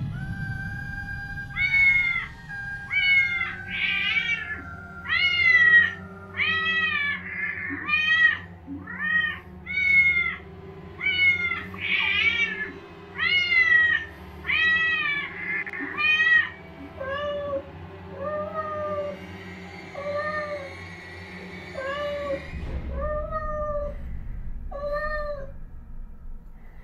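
Recorded cat meowing played from a speaker: a long run of more than twenty meows, about one a second, each rising and falling in pitch. About two-thirds of the way in they turn lower and softer. An eerie music track with a low drone and held notes plays underneath.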